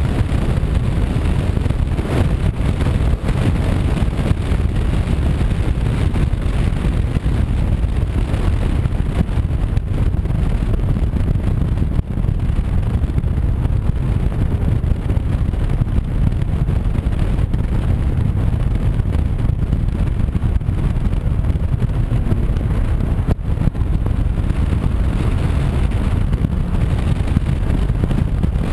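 Steady low wind rumble on the microphone of a camera mounted on a Honda CB500X ridden at road speed, mixed with the motorcycle's running and road noise.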